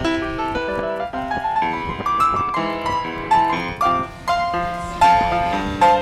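Background piano music: a melody of struck notes over chords, each note fading after it sounds.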